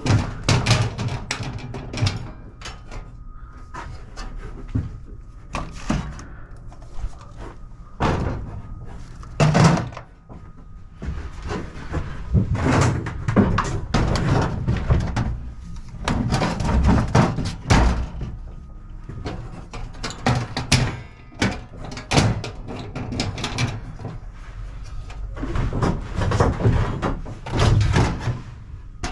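Repeated knocks, thuds and clatter of hand tools and wooden boards being picked up, dropped and packed away, scattered irregularly throughout.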